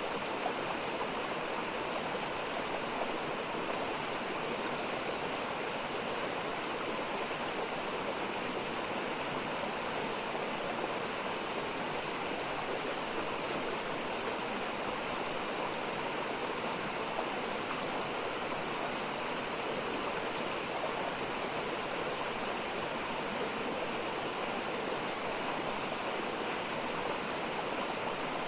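Mountain valley stream flowing steadily: an even, unbroken rush of water.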